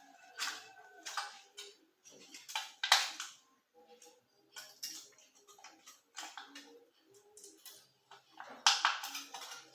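Thin aluminium beer-can pieces being crushed flat by hand, giving irregular bursts of crinkling metal crackles, loudest about three seconds in and again near the end.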